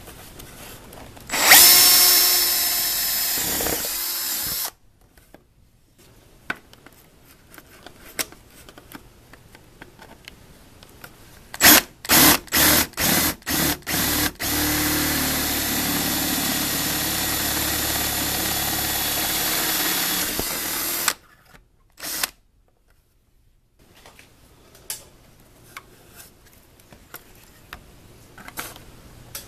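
Cordless drill boring through the metal wall of an electrical control box. It runs for about three seconds. After a pause come a quick series of short trigger pulses, then a steady run of about seven seconds and one brief blip, with light clicks of handling in the quiet gaps.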